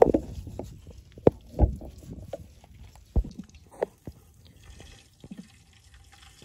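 Wet handling of a plucked bird carcass being cut open with a knife over a metal wok: scattered sharp knocks and clicks with dripping.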